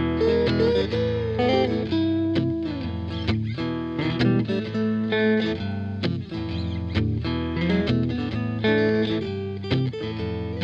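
Background music led by an electric guitar, with strummed chords over a steady bass line.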